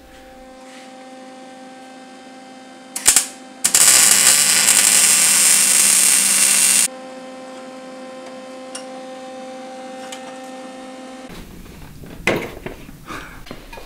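Electric arc welding: a steady electrical hum, a brief arc strike about three seconds in, then about three seconds of loud arc noise that cuts off sharply. The hum stops near the end, followed by a few clatters.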